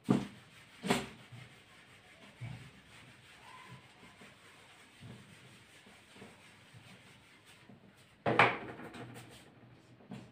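Handheld whiteboard eraser rubbing across a whiteboard, wiping it clean. Two sharp knocks come in the first second, and a louder knock comes about eight seconds in.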